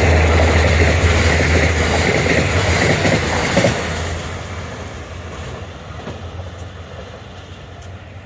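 A train passing close by on the main line: loud low rumble and clatter of wheels on rail, which start fading about four seconds in as the train moves away.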